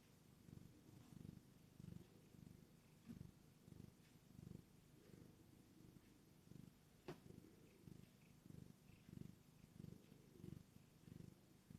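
Tortoiseshell cat purring faintly, the purr swelling in regular beats more than once a second. A single short click about seven seconds in.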